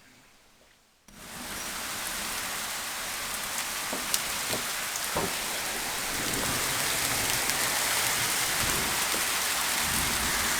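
Heavy rain pouring down, starting abruptly about a second in and getting heavier around the middle, with a few louder drops standing out.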